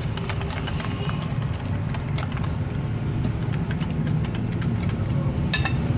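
A wire whisk beating egg-and-flour batter in a glass bowl: a quick run of clicks as the wires strike the glass, with a brighter ringing clink about five and a half seconds in. A steady low hum runs underneath.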